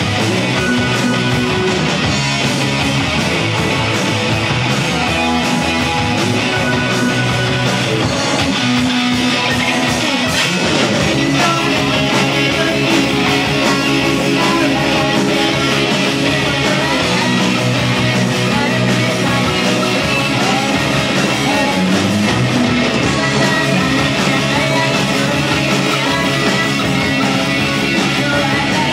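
Rock band playing live: electric guitars, bass guitar and drum kit, with a woman singing lead into a microphone.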